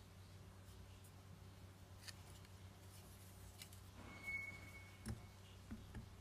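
Faint clicks and taps of a hard clear plastic PS4 controller shell being handled, with a soft knock near the end as it is set down on a silicone mat. A brief high tone, the loudest sound, comes about four seconds in.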